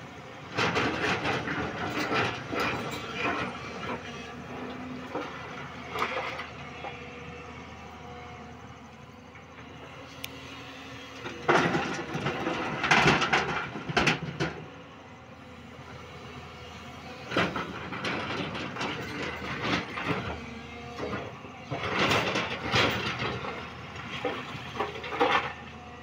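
JCB crawler excavator's diesel engine and hydraulics running, with loud clattering bursts every few seconds as the bucket digs into broken rock and dumps soil and stones into the steel body of a tipper truck.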